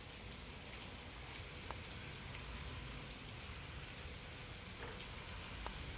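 Rain falling steadily: an even hiss of rain with a few faint, sharp drop ticks.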